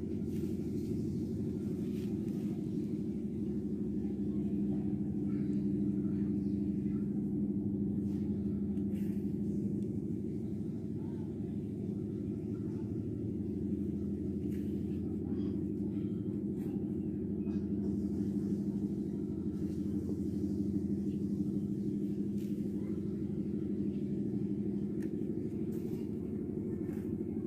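A steady low hum with a few held tones, from an unseen source, runs throughout. Faint, scattered rasps come from wool yarn being drawn through jute sacking with a needle.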